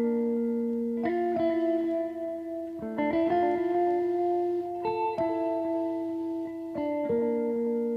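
Background music: a guitar playing sustained chords that change every second or two.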